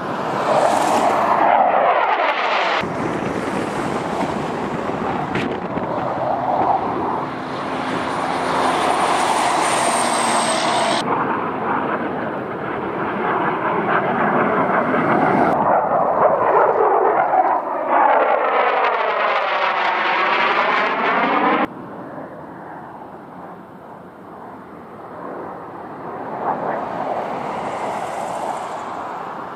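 Jet noise from F-16 fighters flying past low in a series of edited passes, with abrupt cuts between shots. About eighteen seconds in, one pass brings a sweeping, phasing whoosh, and the sound is quieter after that.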